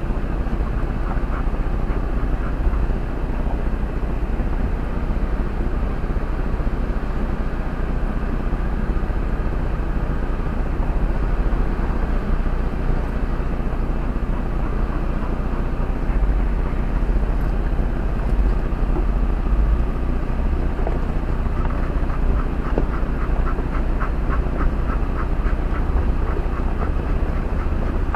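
Jeep Wrangler's engine running low and steady as it crawls at walking pace over a dirt and rock trail, heard from inside the cab. A run of light clicks comes in the last few seconds.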